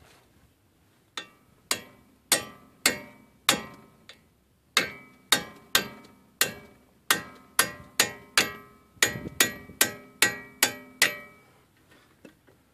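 A sledgehammer striking a socket fitted over the end of a Dana 30 CV axle shaft, driving the shaft out of the hub. About twenty sharp, ringing metal-on-metal blows come roughly two a second and stop near the end.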